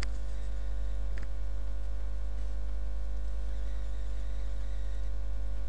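Steady electrical mains hum with a stack of overtones, carried through the recording. Near the start there are two faint clicks about a second apart.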